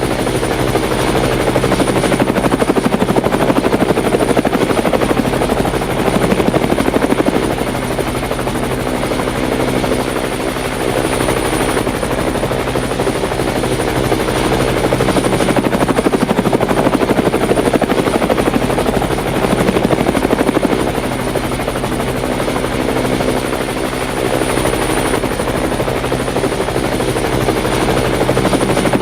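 Rotorcraft running steadily at constant pitch with a continuous rotor hum and a faint high whine, dipping slightly in loudness now and then without changing pitch.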